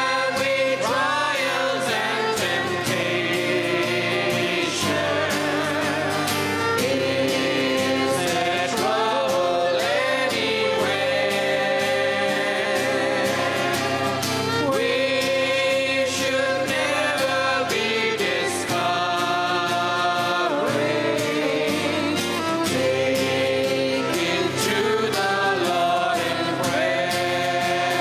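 A worship song sung by a group of singers, with guitar and keyboard accompaniment, continuing steadily throughout.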